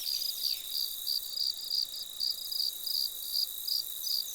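Insects chirping: a high, rhythmic chirp about four times a second over a steady high trill.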